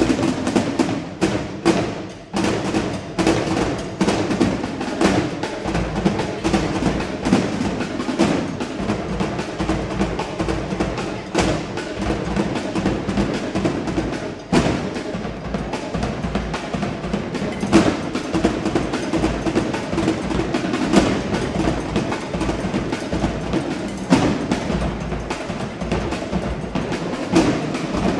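Drill team drum section playing a fast, dense drum cadence, with a sharp struck sound like wood blocks or rims over drums. It starts suddenly, with a few louder accent hits along the way.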